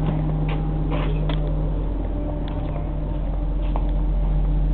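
City transit bus engine running, heard from inside the bus as a steady low hum, with a few scattered clicks and rattles.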